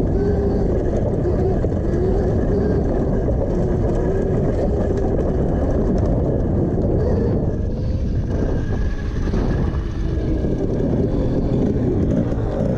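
Electric motor of a Honda CRF150r converted to electric drive, whining while the bike rides along a dirt trail; the pitch wavers as the speed changes and the whine fades for a few seconds near the middle. Heavy wind and rumble on the microphone run underneath it.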